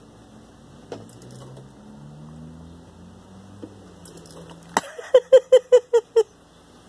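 A sharp click, then a quick run of about seven short, pitched chirps, roughly five a second, from a black cat chattering close to the microphone.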